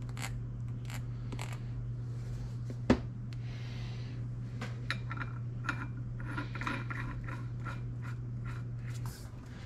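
Light clicks and metal clinks as a large brass nut and hydraulic cylinder piston parts are handled. One sharper knock comes about three seconds in, and a run of small ringing clinks follows in the second half, over a steady low hum.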